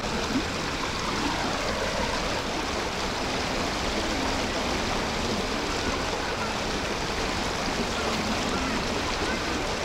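Steady rushing of fast-flowing river water running high.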